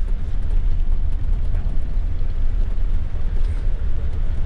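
Steady low rumble of a Scania K440IB-chassis double-decker coach on the move, heard from inside the passenger cabin.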